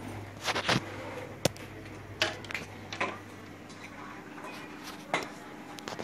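Plastic drink bottles being handled, giving about half a dozen scattered short knocks and clacks over a faint steady low hum.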